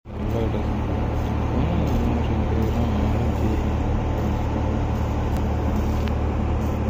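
Steady low engine drone that runs without change.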